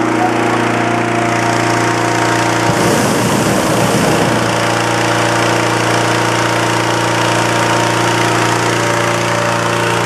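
Petrol-engined hot air balloon inflator fan running steadily at a constant speed, blowing cold air into the envelope. A brief low rumble cuts in about three seconds in.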